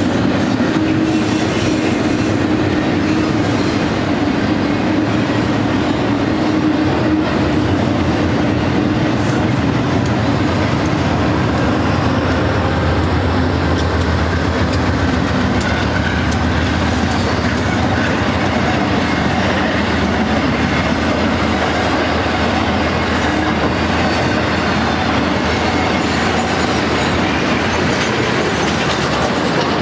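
BNSF double-stack intermodal freight train passing close by: a steady rumble of steel wheels on rail with rhythmic clicking over the rail joints and a few brief high wheel squeals.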